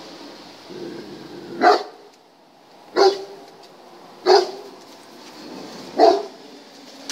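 German shepherd barking: four single barks spaced about a second and a half apart.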